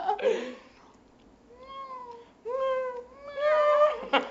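Three drawn-out meows in a row, about a second apart, each held steady and slightly rising at the start.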